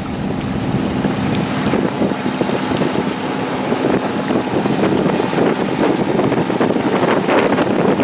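Wind buffeting the microphone over the steady rush of water along the hull of a yacht under way.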